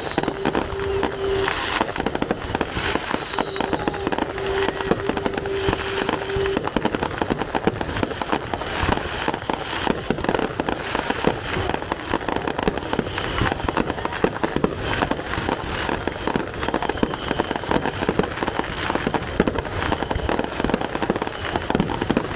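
Aerial fireworks display: shells bursting in quick succession, a dense run of booms and crackle with no let-up.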